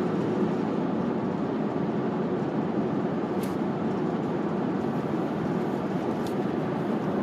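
Steady road and engine noise heard from inside a moving vehicle, an even rumbling hiss with a couple of faint clicks partway through.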